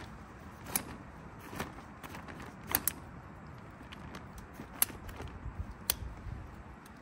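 Folding camping chair being unfolded: its metal frame and joints click and clack, a handful of sharp clicks spread out, with two in quick succession and the loudest a couple of seconds later.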